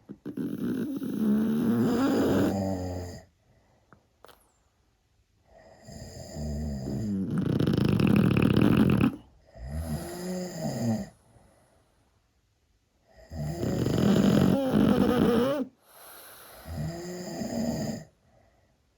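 Snoring from a sleeper: three long, loud snores of about three seconds each, coming roughly every six to seven seconds, with shorter, softer snores between them.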